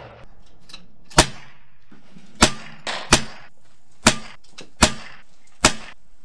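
Gunshots on a shooting range: six sharp cracks, spaced irregularly a second or less apart.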